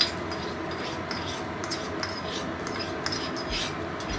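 A metal spoon clinks once against a small steel bowl, then scrapes around it in a run of short strokes, about two a second, working thick cashew paste out into a wok.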